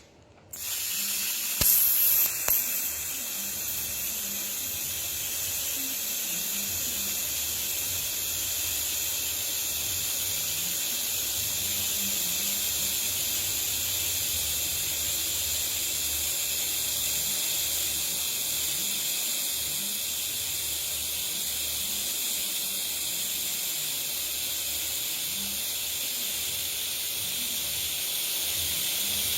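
TIG welding arc running with a steady hiss, after a brief louder crackle about two seconds in.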